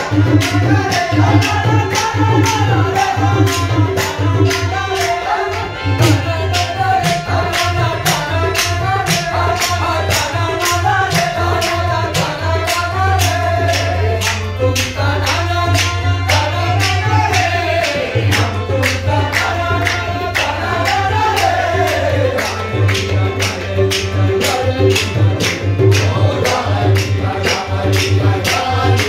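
Qawwali singing with harmoniums and tabla, voices rising and falling over a steady drone. A regular beat of sharp strokes, about three a second, runs through it, from hand claps and the tabla.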